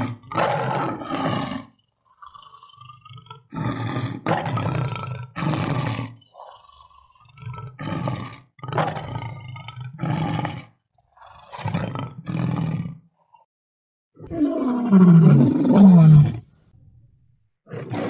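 A lion roaring again and again: short roars in quick groups of two or three, then one longer, louder roar near the end whose pitch swoops down and back up.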